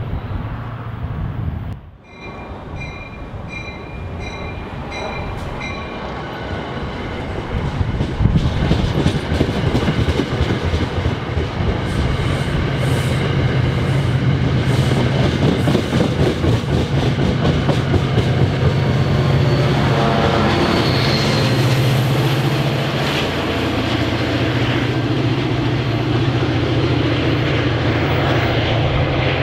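Diesel-hauled passenger train passing close: the coaches' wheels clickety-clack steadily over the rail joints under a steady low diesel engine drone, growing louder from about a third of the way in. Early on, a bell rings about twice a second for a few seconds.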